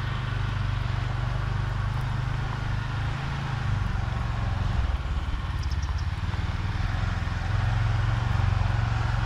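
Engine of a karakat (a homemade all-terrain vehicle on big low-pressure tyres) driving up, running steadily with its engine note dipping and rising a few times.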